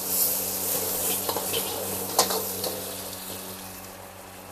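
Food frying and sizzling in hot oil in a pan, stirred with a spatula that knocks sharply against the pan a few times. The sizzle grows fainter toward the end.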